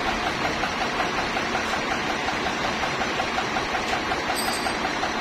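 Sawmill machinery running steadily, a dense mechanical noise with a regular beat of about five a second. A brief high ringing tone sounds about four seconds in.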